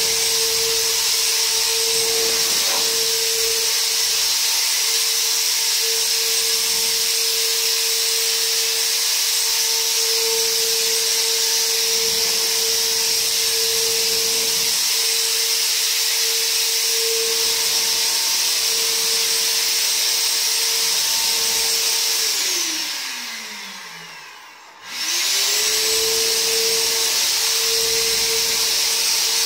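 Handheld electric insecticide fogger running with a steady high motor whine and the hiss of its blower, misting insecticide. About three-quarters of the way through the motor winds down in pitch and stops, then is switched back on and spins up to full speed again within a second or so.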